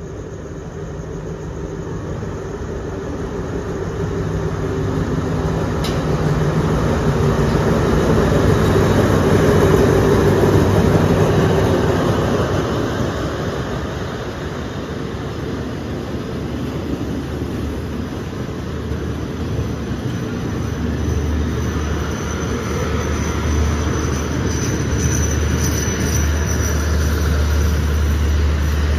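Diesel locomotive of a passenger express pulling into the station. Its engine grows louder up to about ten seconds in as it passes, then a string of coaches rolls along the platform with a deep rumble. A faint thin high squeal comes near the end.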